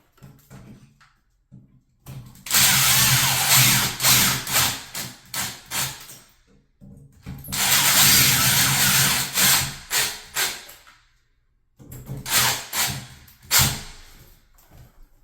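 Power drill driving screws, in two long runs of a few seconds each and then a few short bursts near the end.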